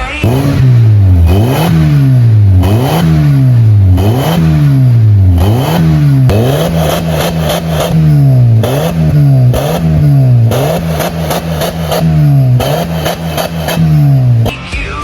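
Honda Civic engine revved repeatedly through a new stainless steel full-system exhaust, about once a second: each rev jumps up quickly and falls back to idle, with a loud exhaust note.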